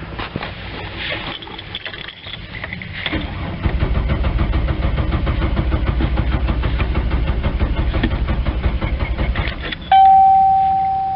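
2005 GMC Envoy's engine turned over by the starter for about six seconds with steady, even cranking but never firing: a crank, no-start condition. As the cranking stops, a loud steady-pitched warning chime rings out.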